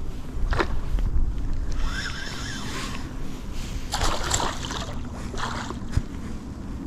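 Wind buffeting the microphone, with a few brief splashes as a small pike thrashes at the water's surface while being played in.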